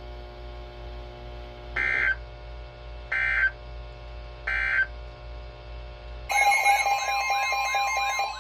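Three short EAS/SAME digital data bursts, evenly spaced about a second apart: the end-of-message code closing a National Weather Service warning on NOAA Weather Radio. About six seconds in, a louder warbling electronic alert sound starts, with a steady tone under it, as the next warning begins.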